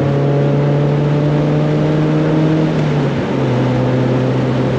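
1999 Mazda Miata's four-cylinder engine running at a steady speed, its pitch dropping slightly about three seconds in.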